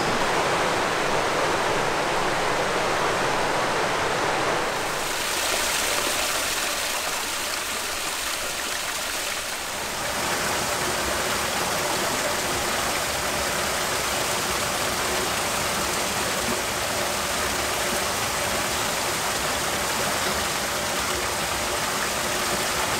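Steady rush of flowing water: a shallow river over rocks, and mineral-spring water splashing from a rock spout into a stone basin. The sound shifts in character about five seconds in and again about ten seconds in.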